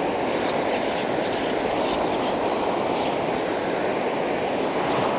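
Steady rushing of a river running high, with a run of short, dry rubbing sounds over it, most of them in the first two seconds and a few more near the end.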